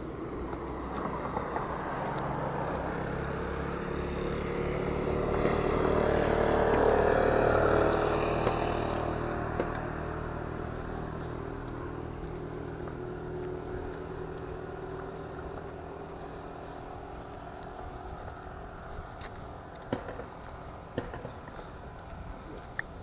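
A car passing on the road: its engine and tyres build up over several seconds to their loudest about seven seconds in, then fade slowly away. A few light clicks come near the end.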